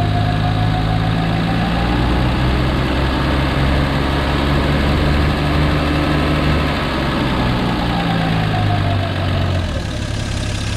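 1951 Studebaker Champion's flathead straight-six running through a makeshift exhaust with a Toyota Corolla muffler, held above idle so it runs steadily without surging. Its pitch creeps up over the first couple of seconds, holds, then falls away near the end as the engine drops back toward idle.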